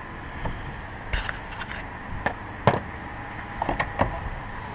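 A string of sharp clicks and light knocks from hand tools and plastic engine-bay parts being handled, as the plastic air intake housing is worked loose and lifted, over a steady low background rumble.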